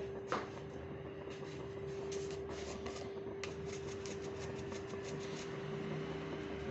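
Salt being sprinkled into a bowl of cracked eggs: a patter of small, irregular ticks for a few seconds, over a steady low hum.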